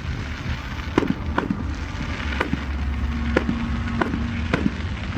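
Fireworks display: about eight sharp bangs at irregular intervals over a continuous low rumble.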